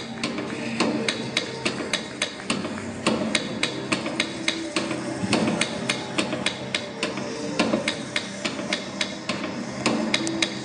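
Sharp wooden percussion knocks in a quick, uneven rhythm, about four to five strikes a second, as in Polynesian dance accompaniment.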